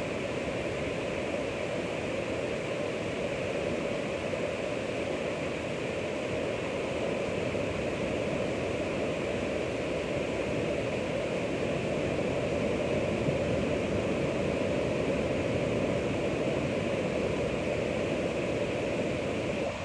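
Ocean waves: a steady rushing wash of surf that swells slightly past the middle.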